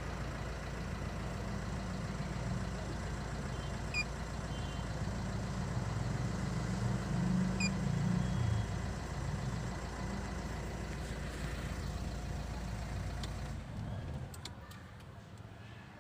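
Car engine idling with a steady low rumble that cuts out about three-quarters of the way through, leaving a much quieter background. Two brief high chirps sound over it.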